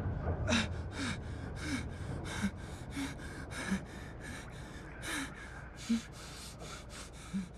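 A man gasping in quick, short, panicked breaths, about three a second, some with a small voiced catch in the throat, as an injured patient coming to in distress.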